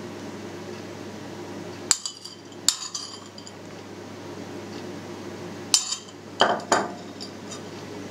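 Metal spoon clinking and scraping against china plates while fried bacon cracklings are scooped and spooned out: two sharp clinks about two seconds in and three more around six seconds, over a steady low hum.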